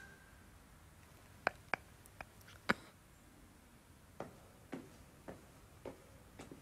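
Faint footsteps on a wooden gym floor: a few sharp, irregular taps, then about two steps a second at an even walking pace.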